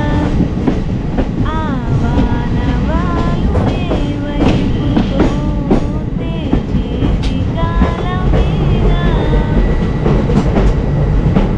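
Passenger train running along the track: a steady loud rumble with rattling clatter from the wheels and coach. A high voice sings or calls in short phrases over it, on and off.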